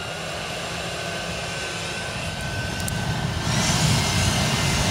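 Makita blower running steadily, blowing air into a wood fire to fan the flames; it gets louder about three and a half seconds in.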